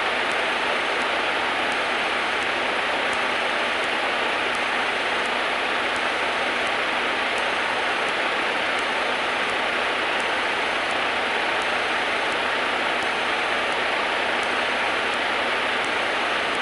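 Steady cockpit noise of a running Cessna 152 on the ground: an even, unchanging hiss with a faint steady whine and faint regular ticking.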